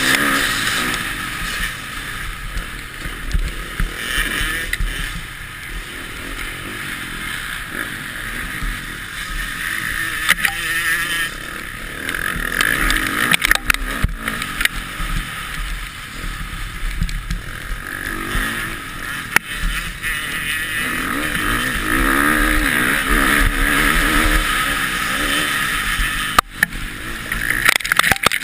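Motocross bike engine revving up and down as the rider works the throttle, heard close from a helmet camera over heavy wind rush on the microphone, with occasional sharp knocks.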